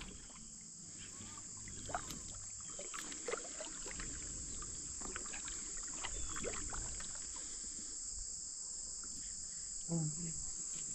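A steady, high-pitched insect chorus, with scattered faint clicks and knocks beneath it.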